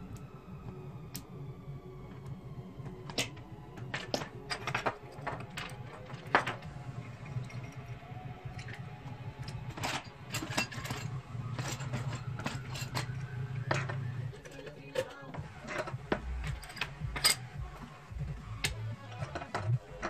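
Small clicks and knocks of metal and plastic parts handled on a desk (aluminium LED spotlight bulbs, test leads and hand tools) over a low hum that stops about two-thirds of the way through.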